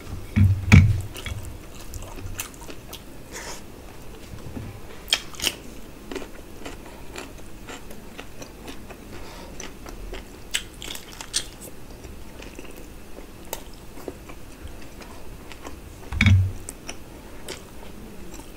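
Close-up eating sounds of mutton curry and rice eaten by hand: chewing with scattered wet clicks and smacks. Two louder low thumps stand out, one near the start and one near the end.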